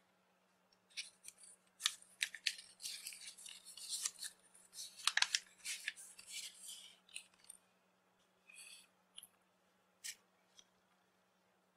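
Paper packet crinkling and rustling as fingertips in rubber finger cots unfold and handle it, with many small crackles, then a few isolated light clicks near the end.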